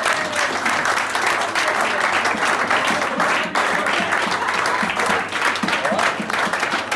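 A roomful of people applauding steadily, with a few voices mixed into the clapping.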